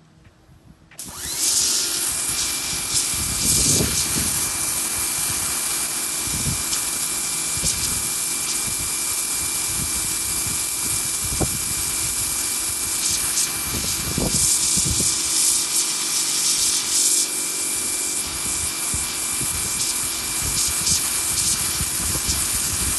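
Powerhouse International electric pressure washer starting about a second in and running steadily with a 0-degree pinpoint nozzle: a loud hiss of the water jet over a steady motor-and-pump hum and whine.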